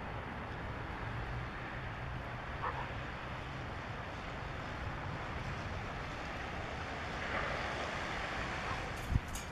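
Steady wind blowing across the microphone, with a couple of short knocks near the end.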